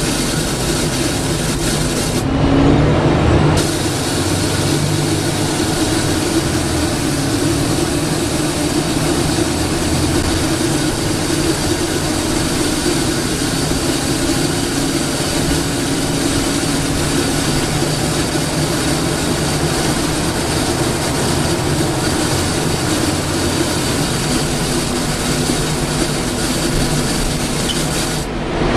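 Volvo B7TL double-decker bus heard from on board while under way: the diesel engine runs with a steady hum that shifts slightly in pitch, along with the loud air-intake suction noise and cooling fan that this bus is known for. There is a brief louder spot a couple of seconds in.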